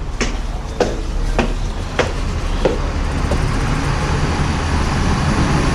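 Footsteps, about one step every 0.6 s, over a steady rumble of street traffic that grows louder.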